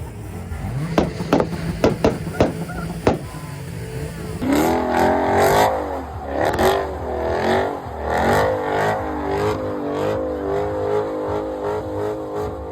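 Car engine revving hard, its pitch rising and falling again and again, after a run of sharp cracks in the first few seconds.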